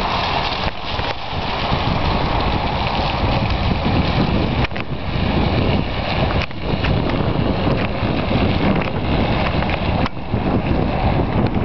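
Ford Ranger 4x4 with its 4.0-litre V6 running off road, the engine noise mixed with heavy wind buffeting on the microphone.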